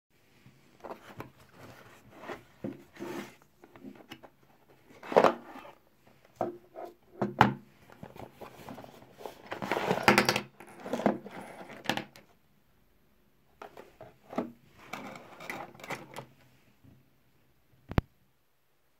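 Unboxing a digital multimeter by hand: the cardboard box, plastic meter and test leads rustle, scrape and knock on a wooden desk in irregular bursts, with a single sharp click near the end.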